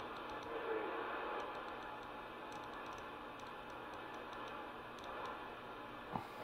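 CB radio receiver hissing with static from its speaker while the channel selector is clicked through the channels, with light irregular ticks from the knob and a sharper click near the end.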